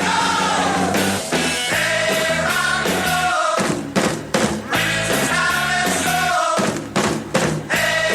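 A 1970s rock and roll record with a lead vocal over drums, bass and guitar, a steady beat with sharp drum hits.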